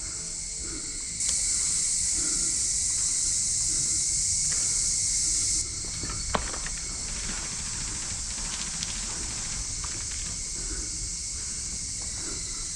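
Insects buzzing in a steady high-pitched drone, one chorus suddenly swelling louder about a second in and cutting off about four seconds later. There is a single sharp click a little past the middle.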